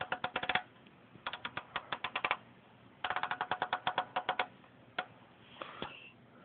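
Rotary channel selector of a Colt 295 CB radio clicking through its detents in three quick runs of rapid clicks, then one single click about five seconds in.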